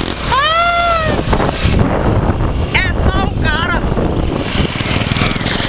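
Small motorcycle engine running on a trail ride, with wind buffeting the microphone. Over it a rider lets out a long rising-then-falling whoop about half a second in, and a run of warbling calls around three seconds in.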